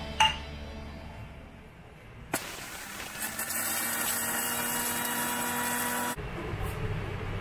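Electric mixer grinder running, grinding whole cloves, cardamom and cinnamon to powder in its steel jar: a steady motor whir that starts a little over two seconds in and cuts off abruptly about six seconds in. A sharp click comes just after the start.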